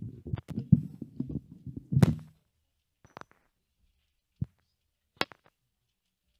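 Handling noise from a handheld microphone gripped in the hand that is turning Bible pages: about two seconds of dull rubbing and thumps with clicks, then a few single clicks and knocks.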